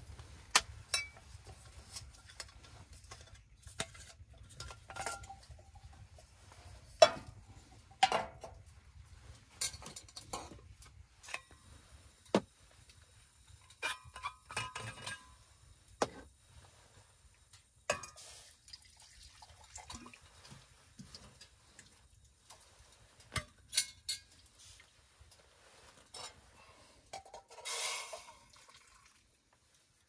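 Metal camp cookware handled: many separate clinks and knocks of pots, lids, cups and a steel vacuum flask. Near the end, liquid is poured into a metal cup.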